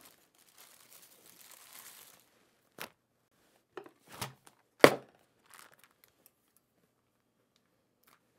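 Plastic bag of milk crinkling as it is handled and pushed down into a plastic milk-bag pitcher, followed by a few separate knocks, the loudest about five seconds in.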